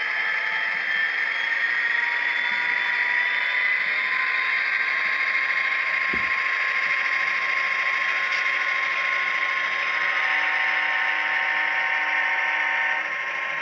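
Model GP35 locomotive's sound decoder playing a turbocharged EMD diesel at notch 8, full throttle: the engine and turbo whine rise in pitch over the first few seconds, then hold steady. It comes through a small speaker, thin and without deep bass, with a single soft knock about six seconds in.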